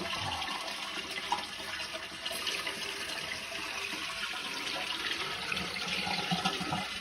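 Toilet with a freshly rebuilt tank (new flush and fill valves) being flushed as a test: a steady rush of water that stops at the end, with the flush working properly.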